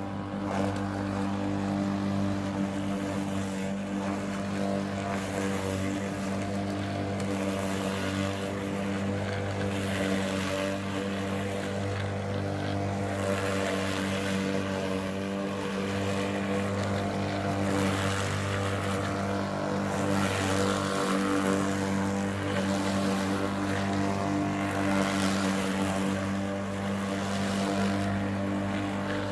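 Steady motor drone held at one constant speed, with a low hum that does not change pitch.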